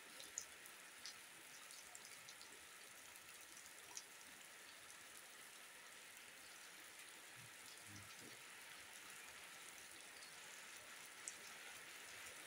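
Faint, steady rain falling on grass, mud and puddles, with a few louder single drops landing close by.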